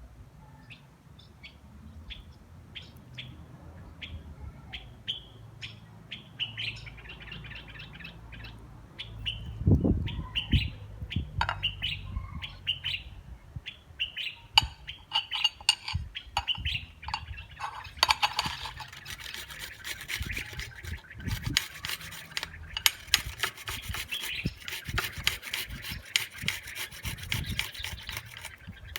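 A small bird chirping in short, repeated calls, with scattered knocks and rubbing sounds. From about two-thirds of the way in, a dense, rapid crackling rasp takes over.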